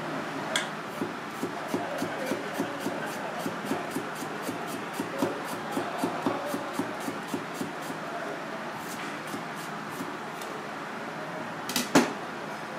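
Kitchen knife slicing a cucumber into thin rounds, the blade tapping the cutting board about three times a second, then stopping. Near the end, a single louder knock.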